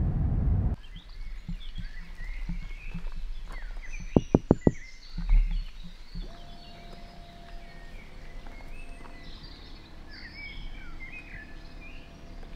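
Car cabin driving noise that cuts off within the first second, then birds chirping. About four seconds in there is a quick run of four sharp clicks followed by a dull thump.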